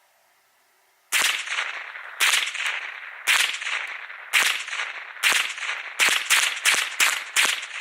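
Ruger 10/22 semi-automatic .22LR rifle firing a full ten-round magazine: ten sharp shots, each with a short echo. The first four are about a second apart, then the pace picks up to about three a second near the end.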